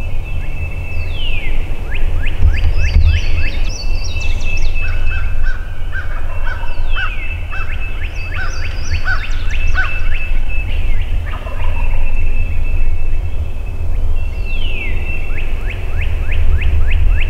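Wild turkey gobbling among songbirds: one songbird repeats a song of a falling slur followed by a quick run of notes three times, with other birds calling between. A steady low rumble runs underneath.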